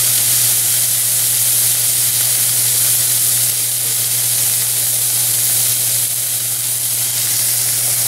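Diced green bell pepper sautéing in a hot pan: a steady sizzle, with a steady low hum underneath.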